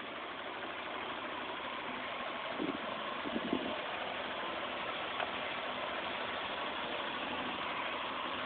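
Vauxhall Senator's 180,000-mile 3.0-litre C30NE straight-six engine idling steadily, not yet up to full temperature. A few short knocks sound about three seconds in.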